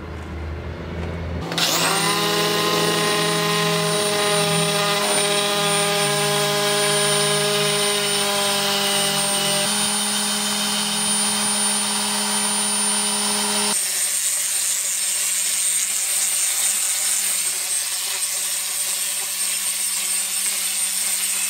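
Electric random-orbit sander starting up about a second and a half in and running with a steady whine, sanding a solid-surface countertop. The sound changes abruptly about 14 seconds in to a second, thinner-sounding stretch of sanding.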